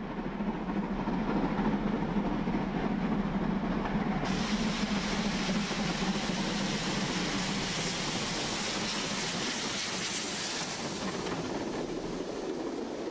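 A 4-6-0 mixed-traffic steam locomotive working hard at the head of a passenger train as it approaches and passes close by. Its coaches then run past on the track.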